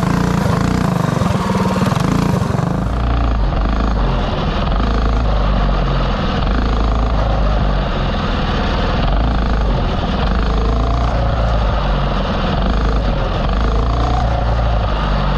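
A mini bike's small Predator 212 single-cylinder four-stroke engine revving hard under load as the bike is ridden. It is high-pitched for the first three seconds or so, then runs on with the revs rising and falling.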